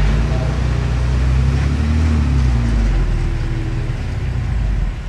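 Engine of heavy earthmoving equipment, a small bulldozer or dump truck, running steadily under load with slight changes in pitch.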